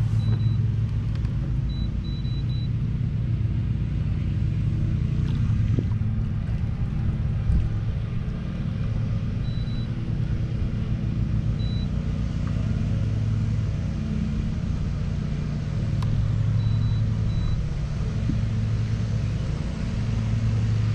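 Outboard motor of a bass boat idling steadily at close range, a low even engine note with no change in speed.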